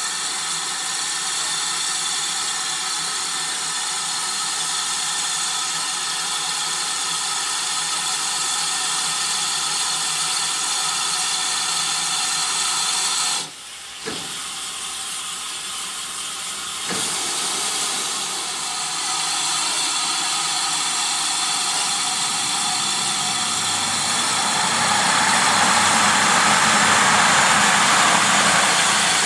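Steam hissing steadily from GWR 5700-class pannier tank locomotive 3738 as it stands in steam. The hiss dips briefly about halfway through and grows louder near the end.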